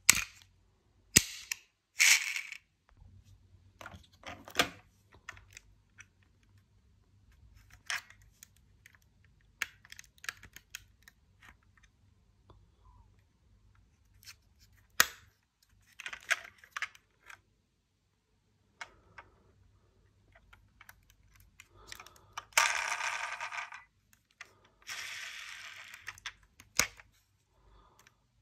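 Diecast toy cars being handled: scattered sharp clicks and clinks of small metal cars being picked up and set down, with two longer scraping sounds, each about a second and a half, near the end.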